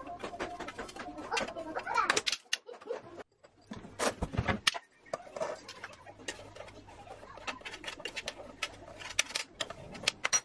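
A metal spoon scraping and clinking against a stainless-steel Thermomix bowl and a glass jar as ground spice mix is spooned out: an irregular run of small scrapes and taps, with a louder knock about four seconds in.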